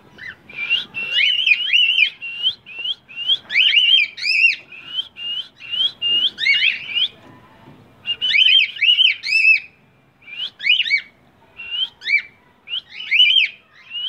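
Grey cockatiel whistling its song: quick runs of short, chirpy up-and-down notes in several bursts with brief pauses between them.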